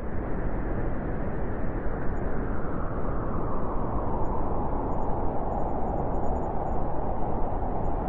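Blizzard wind blowing in a steady rush, with a howling tone that grows stronger over the last few seconds.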